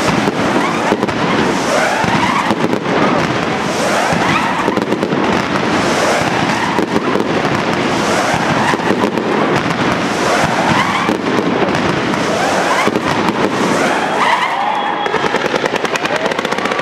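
Dense fireworks barrage of continuous crackling and rapid bangs, with rising whistles about every two seconds. Near the end, steadier high whistles set in and a fast rattling run of reports starts.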